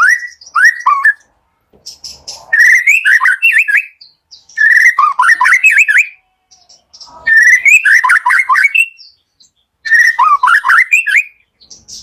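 White-rumped shama (murai batu) singing: five phrases of varied whistled notes with quick up-and-down slurs, each about one to two seconds long and separated by short pauses.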